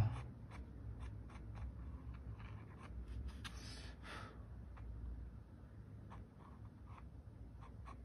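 Faint scratching of a pencil on paper in short strokes, sketching an outline, with a longer scrape about four seconds in.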